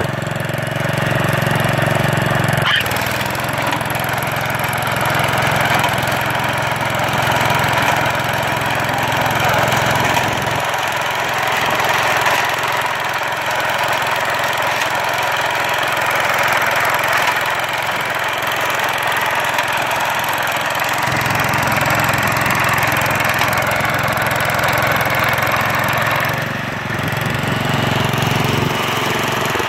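Ryan Heavy Duty sod cutter's Kohler engine running steadily under load, driving the oscillating blade as the machine cuts a strip of turf. The lower part of the sound drops away for about ten seconds midway.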